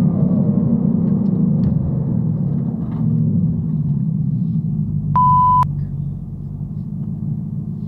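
Edelbrock-supercharged Ford Coyote V8 running at low revs, a steady rumble heard inside the car's cabin, its pitch easing slightly lower over the first few seconds. About five seconds in, a half-second single-tone bleep sounds over it and is the loudest sound.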